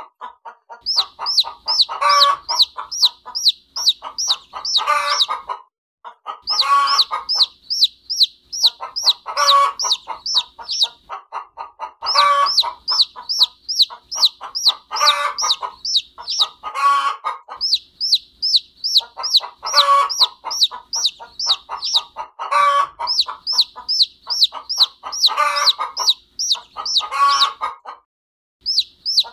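A hen clucking in short clusters every two to three seconds, over a chick peeping almost without a break in high, thin, falling cheeps at about three or four a second. Both stop briefly near the end.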